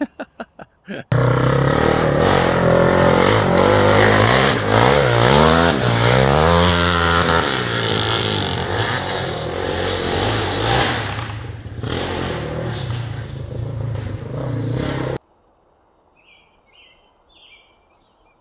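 A few quick clicks, then a loud engine running and revving up and down for about fourteen seconds, cutting off abruptly.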